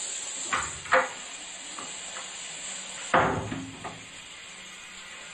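A few knocks and bumps over a steady high hiss. The sharpest knock comes about a second in, and a louder noisy bump about three seconds in dies away over half a second.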